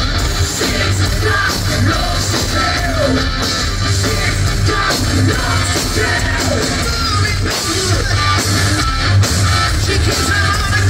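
Live rock band playing loud: distorted electric guitars, bass and drums with a singer, heard through the venue's PA from within the crowd.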